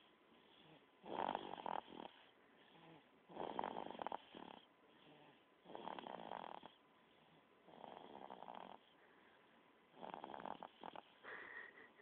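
A three-month-old baby snoring in his sleep: soft snores come roughly every two seconds, about six in all, with quiet breathing between them. One snore near the end carries a thin high whistle.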